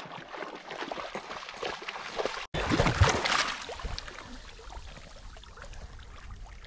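Staffordshire bull terrier paddling and splashing through shallow lake water, with a louder burst of splashing about three seconds in.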